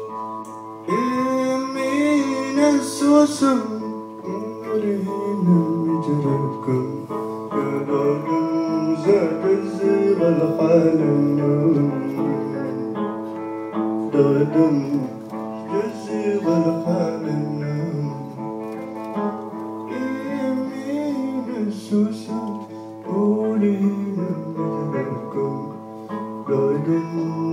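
Live desert blues: an electric guitar played through the PA, with a man singing over it from about a second in.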